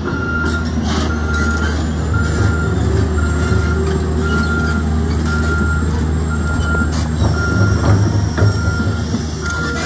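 Cat 365CL hydraulic excavator's Cat diesel engine running under load as the machine travels on its steel tracks, with scattered track clanks. Its travel alarm beeps steadily, about once a second.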